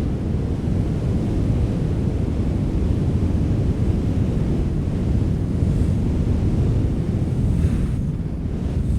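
Strong wind blowing steadily as a deep rumbling rush, with a couple of brief higher gusts of hiss in the second half.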